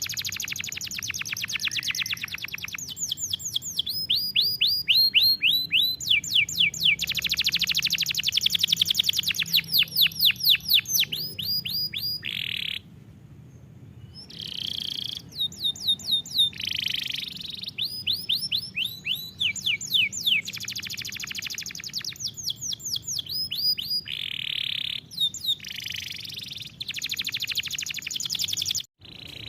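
Domestic canary singing: fast trills and runs of rapidly repeated downward-sweeping whistled notes, the phrase changing every second or two. There is a pause of about a second and a half about 13 seconds in.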